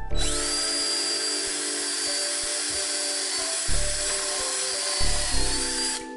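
Cordless drill running steadily for about six seconds as it bores into wooden framing, with a high motor whine that rises as it spins up; it stops just before the end. Background music plays underneath.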